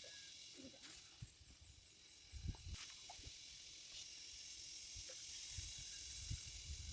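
Faint steady high-pitched hiss of outdoor ambience, with a few soft low thumps.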